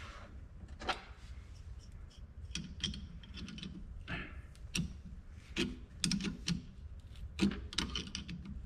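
Hand tap being turned into a drilled hole in a nylon knob: irregular light clicks and small knocks from the tap and its wrench, over a low steady hum.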